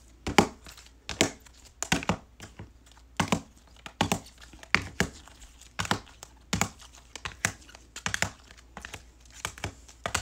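Hard plastic trading-card holders clicking and clacking against each other as a stack of cased cards is handled and shuffled through, sharp irregular clicks about twice a second.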